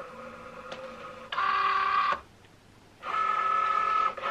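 Cricut Joy cutting machine's motors drawing the loaded vinyl in: a faint hum, then two steady high-pitched mechanical whines, the first about a second long, the second starting after a short pause and still going near the end.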